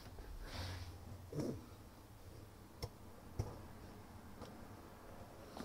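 Quiet handling sounds: a soft brief rustle early on, then a few light, separate clicks and taps as parts and tools are handled.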